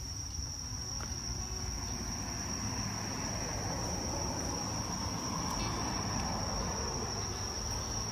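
Night insects, crickets or similar, calling in one continuous high-pitched trill. A soft rushing noise swells in the middle and fades again.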